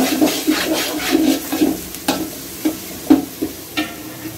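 Long metal spoon stirring and scraping against the inside of a large aluminium pot of onions and whole spices frying in oil, with a sizzle under it. The scrapes come quickly at first and slow to a few separate strokes after about two seconds.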